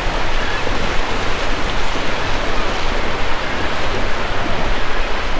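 Waves breaking on a beach with wind noise on the microphone: a steady rushing hiss over a fluttering low rumble.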